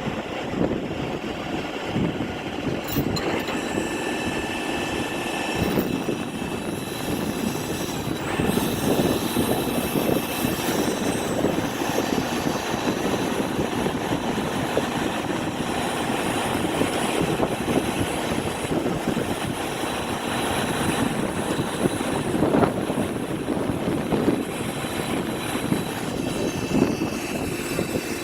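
Heavy machinery running steadily: a dense, continuous engine rumble with faint high steady whines above it.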